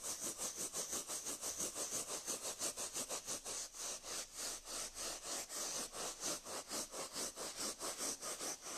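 Floor cloth scrubbed quickly back and forth over carpet pile, a rapid even rasping of about six strokes a second, working cleaner into oil, beetroot and coffee stains.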